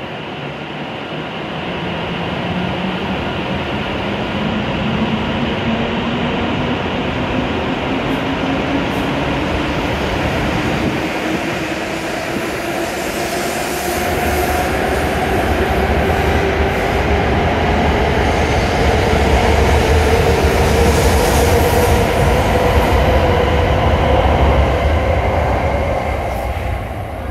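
W7 series Shinkansen train pulling away from the platform, its traction motors whining in a pitch that climbs steadily as it gathers speed, over the growing rumble of the cars rolling past. The sound falls away near the end as the last car clears.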